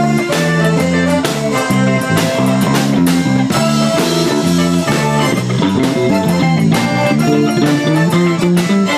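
Live rock band playing loudly, with electric guitars, bass guitar and a drum kit keeping a steady beat.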